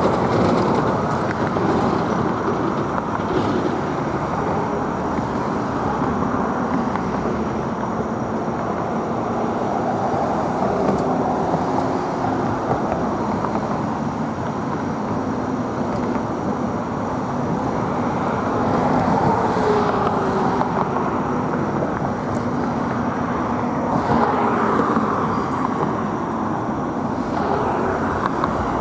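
Steady road traffic noise, with cars passing and the sound swelling a few times as vehicles go by.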